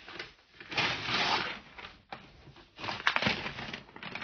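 Gift-wrapping paper being torn off a present and crinkled, in two main rips: one about a second in and another near three seconds.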